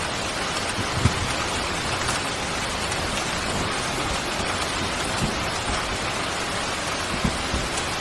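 Steady heavy rain falling, a dense even hiss, with a few brief low thuds of drops striking a surface, about a second in and twice near the end.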